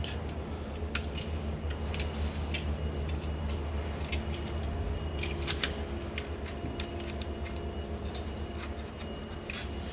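Light metallic clicks and clinks of tools and brake parts being handled during a rear brake disc change, scattered irregularly over a steady low hum.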